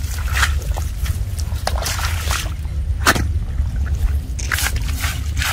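Muddy water sloshing and splashing in irregular bursts, with wet squelches, over a steady low rumble.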